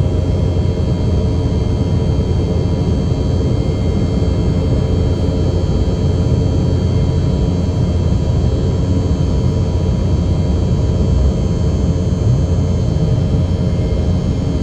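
Embraer 190 airliner's GE CF34 turbofan engines and airflow heard as steady, loud cabin noise in flight: a constant low rumble with several steady whining tones over it.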